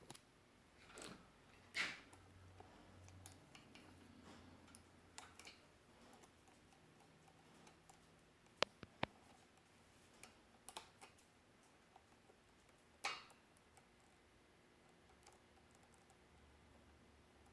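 Faint handling noise: a few scattered clicks and taps, the sharpest just past the middle, with near silence between them.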